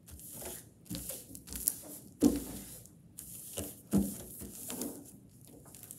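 Hands pressing and smoothing a sheet of clear plastic contact paper flat over tissue paper on a table: irregular rustling and crinkling of the film, with a couple of sharper pats, the loudest about two and four seconds in.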